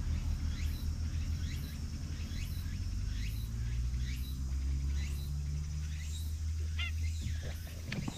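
Faint short bird chirps repeat roughly once a second over a low steady rumble that fades out near the end. A brief higher call comes about seven seconds in.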